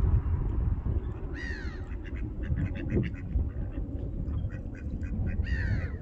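Ducks calling on the water: two drawn-out calls, about a second and a half in and near the end, with many quick short calls in between, over a steady low rumble.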